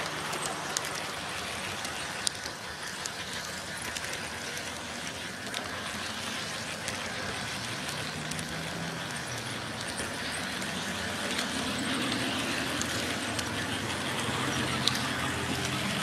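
G-scale model train running along the track: a steady running noise with a low hum that shifts in pitch, and scattered light clicks.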